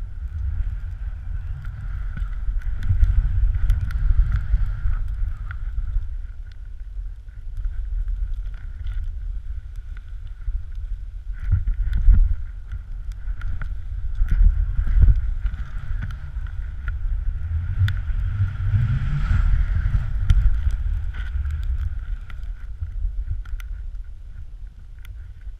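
Wind buffeting the microphone of a pole-mounted action camera during a fast ski descent through deep powder: a low, uneven rumble that swells and eases, loudest around the middle and a few seconds later, with scattered light knocks.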